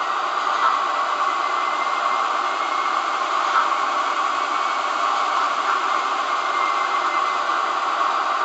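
Sound decoder in a Roco SBB Re 4/4 model electric locomotive playing a steady locomotive running noise through its small speaker, thin and without bass.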